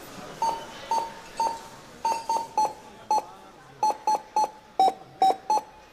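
Supermarket checkout barcode-scanner beeps played as a melody: about fourteen short, clean tones in a tune-like rhythm, mostly on one note with a few a little lower near the end.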